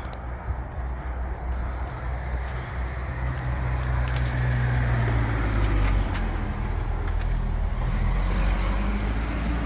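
A motor vehicle running: a steady low engine rumble with road noise, swelling louder through the middle and staying up.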